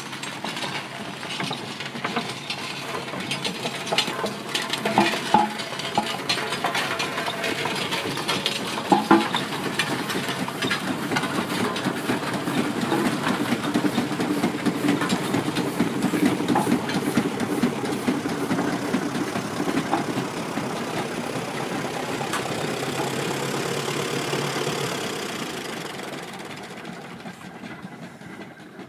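Steam traction engine at work pushing a road roller: steady mechanical running with rapid knocking and clanking, with louder clanks about 5 and 9 seconds in. The sound fades away over the last few seconds.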